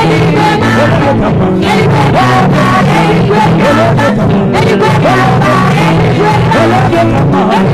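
Live gospel band music with no words: a steady bass line and beat under short sliding lead notes.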